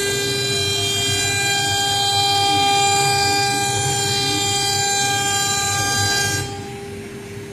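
3 kW water-cooled spindle of a CNC router engraving a fibreboard panel: a loud, steady, high-pitched whine over a rough rumble. A little past six seconds in, the sound drops and grows quieter, leaving the spindle's steady whine.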